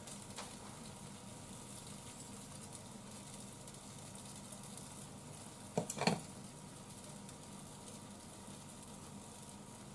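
Shredded cabbage and tenkasu sizzling steadily in a frying pan over heat just turned down, as raw eggs are tipped onto it. Two brief knocks about six seconds in.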